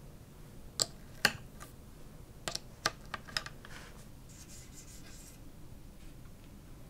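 Plastic brush handles clicking and knocking into a small white plastic IKEA cable holder as two mini cleaning brushes are slotted in: a quick run of about seven sharp light clicks, the first two loudest, then a soft brushing rustle.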